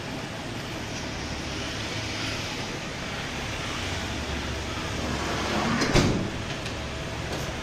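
Steady low rumble of a van's engine idling amid street noise, with a single loud thump about six seconds in.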